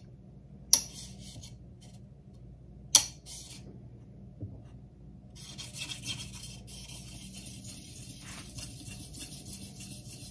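Two sharp clicks, then from about halfway in a soft Arkansas whetstone rubbing back and forth on the flat back of a steel drawknife blade: a steady gritty scraping.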